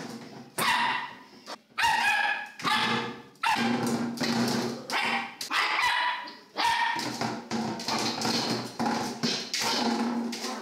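Small dog barking over and over, about one or two barks a second, as it tries to knock over a large water jug.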